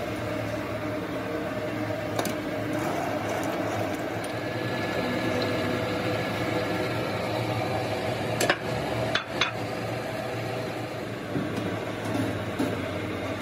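Steady hum of workshop machinery, with a few sharp metallic knocks as a steel axle shaft is turned by hand on the straightening press's rollers: one about two seconds in and three close together near the middle.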